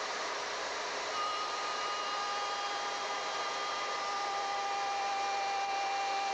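Table-mounted wood router running steadily: a constant airy motor noise, with a high whine that comes in about a second in and holds.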